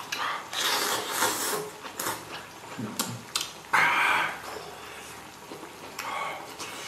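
Someone eating from a hot pot: slurping a mouthful of food, then chopsticks clicking against a steel pot and bowl, with a short louder burst of noise about four seconds in.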